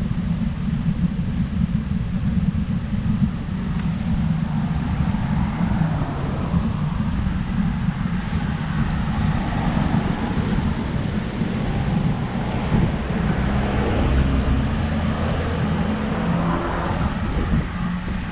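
Wind rumbling steadily on the microphone of a riding cyclist's camera, with road noise from the bike underneath.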